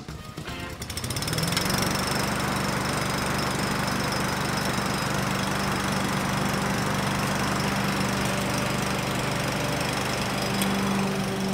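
Masport petrol push lawn mower engine starting up, its pitch rising over the first second or so, then running steadily at a constant speed.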